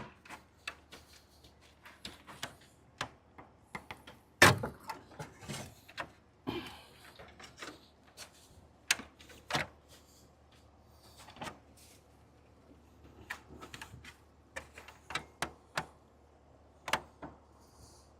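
Irregular clicks and knocks of a Jeep grille being handled and pressed into place, its mounting pins going into their holes. One louder knock comes about four and a half seconds in.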